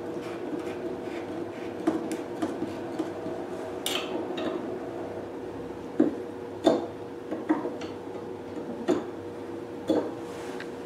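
Hands screwing and fitting a clear plastic filter cup onto a hydrodermabrasion beauty machine: scattered clicks and knocks of plastic, about seven in all, over a steady hum.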